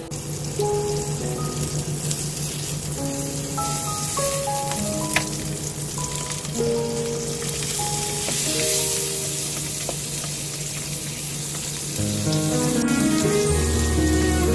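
Small whole fish sizzling steadily as they pan-fry in hot oil, with a single sharp tap about five seconds in.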